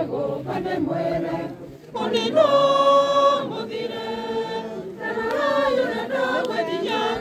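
A crowd singing a hymn together, with a long held note about two seconds in.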